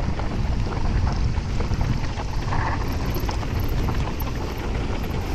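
Wind rushing over a helmet or chest camera's microphone, mixed with the steady rumble of mountain-bike tyres on a loose dirt trail at descending speed, with scattered small clicks and rattles from the bike.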